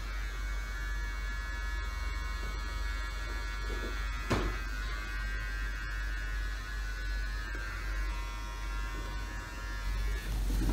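Electric hair trimmer running steadily as it trims a man's mustache and beard, with one sharp click about four seconds in. The trimmer stops shortly before the end.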